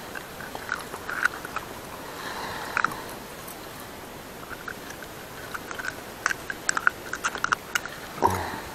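Small sharp clicks and scrapes of a metal spoon lure and its hooks against a pike's toothy jaws as the lure is worked free by hand, scattered at first and crowding into a quick run of clicks over the last few seconds. A short dull thump comes near the end.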